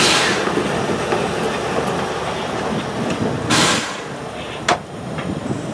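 Small diesel shunting locomotive passing close by, its engine running over the rumble of wheels on rail. Short bursts of hiss about a second apart at the start and about three and a half seconds in, and a sharp click near the end.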